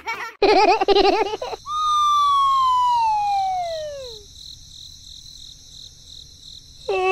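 Cartoon sound effects: a wobbling warble, then a long falling whistle that sinks over about two and a half seconds, and near the end another tone sliding steeply down.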